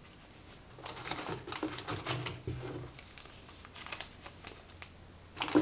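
Small paper slips and cards being handled and shuffled together in the hands: light rustling with scattered soft ticks.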